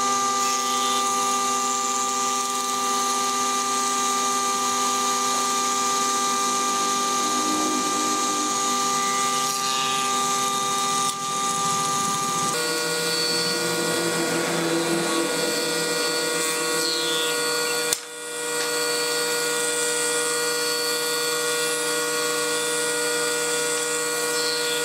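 Combination jointer-thickness planer woodworking machine running steadily with a loud, many-toned whine while planing pine boards. The tone pattern shifts abruptly about halfway through.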